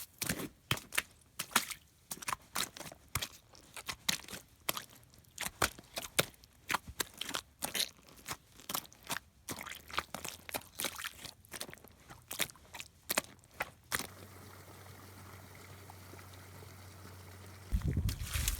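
A quick, irregular run of sharp crunching clicks, several a second, which stops about fourteen seconds in and leaves a steady low hum.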